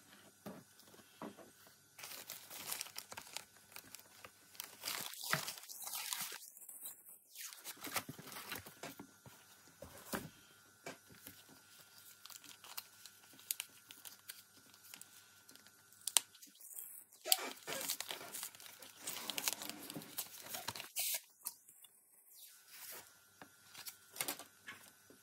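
Dry scratching and rustling of hand tools working on a small icon panel, in irregular short strokes.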